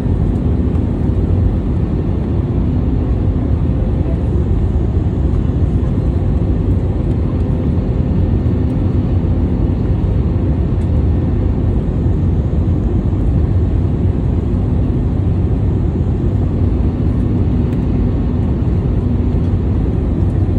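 Steady cabin noise inside a jet airliner on approach: the low rumble of the engines and airflow heard through the fuselage, with a faint steady hum.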